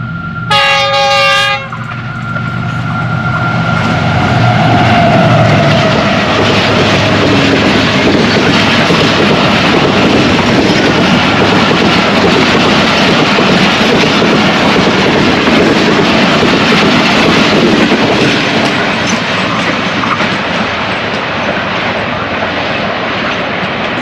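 Passenger express train hauled by a GEU-40 diesel-electric locomotive running through a station at high speed: one short horn blast about half a second in, the locomotive's engine passing with a falling pitch, then a long loud rush of coaches over the rails that eases off near the end.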